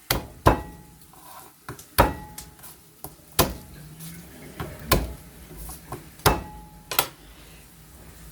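Garlic cloves being pounded to crack their skins: about seven sharp knocks at uneven intervals, several with a short metallic ring.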